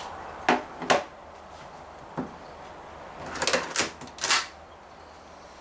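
Clicks and clacks of a Daisy Model 340 spring-powered BB pistol being handled and cocked between shots: two sharp clicks about half a second apart, a faint knock, then a quick run of clacks past the middle.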